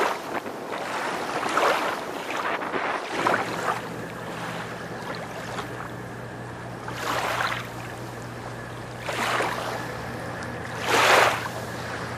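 Pilot boat underway: water rushing past the hull and wind on the microphone, swelling in loud gusts every couple of seconds. A steady low hum sets in about three seconds in.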